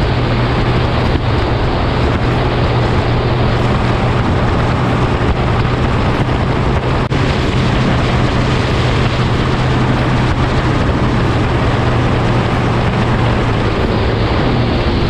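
An engine running steadily with a constant low drone, under a rush of wind noise on the microphone.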